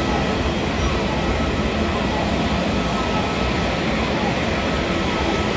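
A twin-engine widebody jet airliner taxiing, its turbofan engines at low power making a steady rumble with a faint high whine held throughout.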